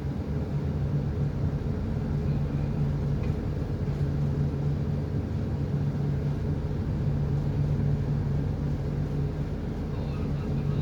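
A large engine running steadily at constant speed, a continuous low hum with no change in pitch.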